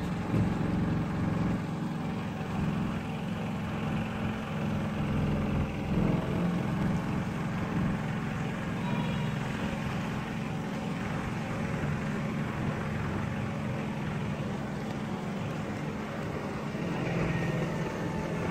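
A small motorboat's engine running steadily under way, a low even drone with no change in speed.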